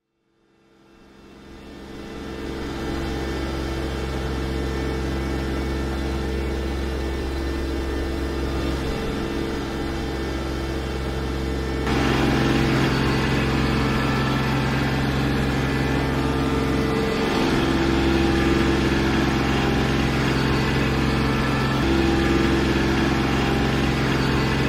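Kubota compact tractor's diesel engine running steadily under load, driving a rear-mounted PTO rotary tiller through the soil. The sound fades in over the first couple of seconds and steps louder about halfway through.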